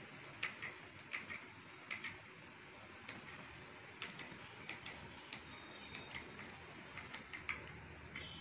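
Fabric scissors snipping through cloth: a run of short, faint, crisp snips at an uneven pace, one to three a second, as the blades close on the fabric.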